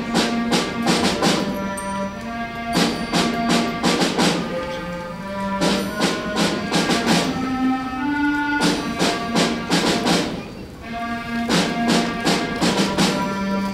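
Student concert band playing: wind instruments holding and moving between sustained notes over frequent sharp percussion strikes.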